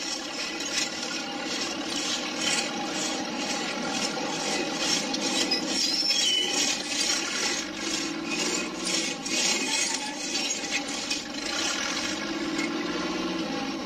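Saw cutting through sandstone in repeated rasping strokes, over a steady hum.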